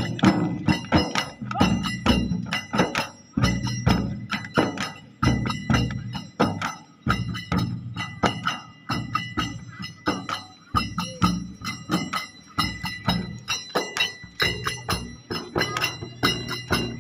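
Several chang, large hand-beaten frame drums, played together in a fast, steady dhamal rhythm, with a steady high ringing over the strokes.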